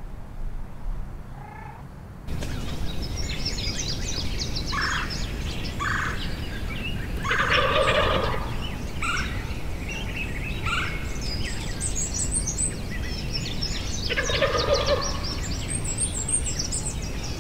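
A wild turkey tom gobbling twice, about seven seconds apart, with songbirds chirping around it.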